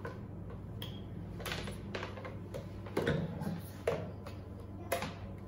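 Plastic clicks and metal clatter of electric hand mixers and their steel wire beaters being handled, with the beater-release mechanism being worked; a handful of separate knocks over a low steady hum.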